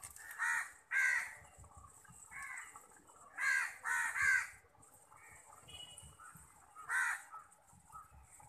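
Crows cawing repeatedly: single harsh caws, then a quick run of three near the middle and one more near the end. Under them runs a faint steady splash of water from the aquarium motor's outflow.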